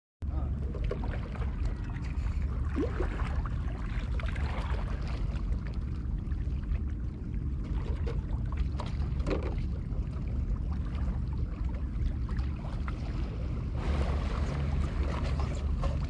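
Wind buffeting an action camera's microphone by the sea, a steady deep rumble with faint crackles of water on the breakwater rocks. It cuts in abruptly just after the start.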